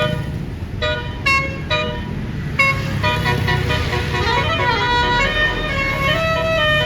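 Indonesian bus "telolet" horn, a set of tuned air horns: a few short separate toots, then from about two and a half seconds in a quick melody of changing notes, over the low running of the bus engine.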